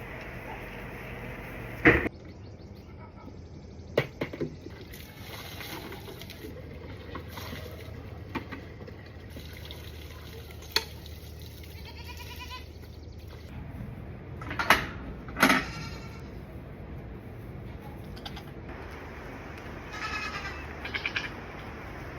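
A few sharp knocks and clatters over a steady low background, with short animal calls near the middle and again near the end.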